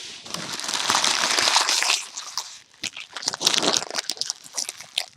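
Close crinkling and rustling handling noise, a dense stretch for about two seconds followed by scattered sharp crackles and clicks, cut off suddenly near the end.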